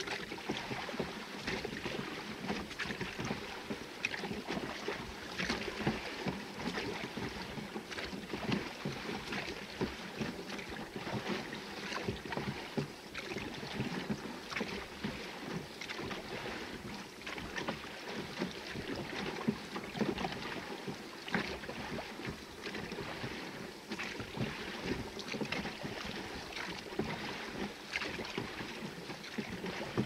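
A small rowing dinghy being rowed with a pair of oars: oar blades dipping and pulling through the water, and water splashing and lapping against the hull, with many small clicks and splashes throughout.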